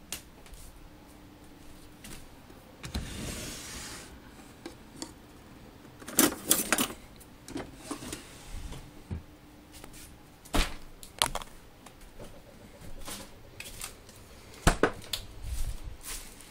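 A few sharp knocks and clatters amid handling noise, with a short hiss about three seconds in.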